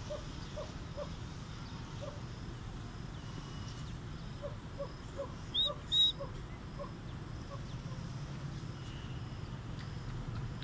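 A bully dog whimpering softly in short, rising notes, two or three a second, in two runs, over a steady low hum. Two brief high bird chirps, the loudest sounds, come about six seconds in.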